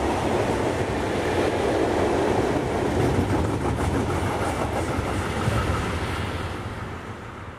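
Freight train wagons, tank cars and covered and open goods wagons, rolling past at speed, their wheels running loudly over the track. Near the end the last wagon goes by and the rumble fades away.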